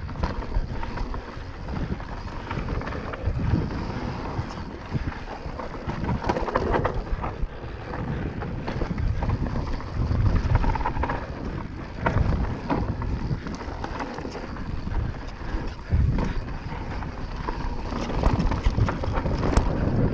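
Mountain bike descending a rough dirt trail at speed: tyres rolling over dirt and rocks and the bike knocking and rattling over bumps, with steady wind on the microphone.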